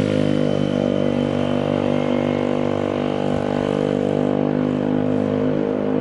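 Motorcycle engine running at a steady speed while being ridden, a constant engine note with only slight changes in pitch.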